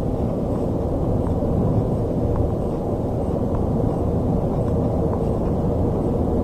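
Steady road and engine noise of a car driving at expressway speed, heard from inside the cabin as a low, even rumble.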